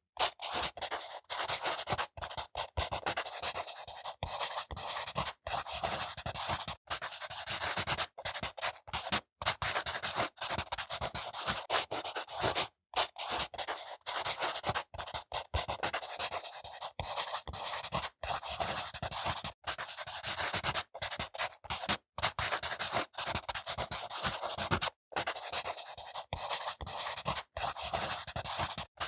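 Close-miked scratching and rubbing of a makeup tool worked over a grapefruit's peel, in quick irregular strokes broken by many short gaps.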